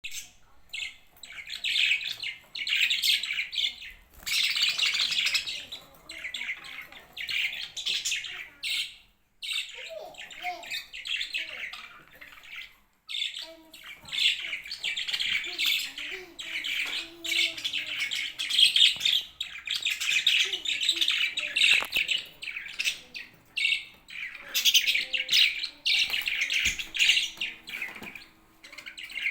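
Pet budgerigars chattering and warbling in dense bouts of a few seconds, broken by short pauses.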